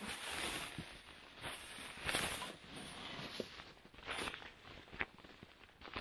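Irregular rustling and crunching of a person moving about in snow and handling a backpack, with a few short clicks.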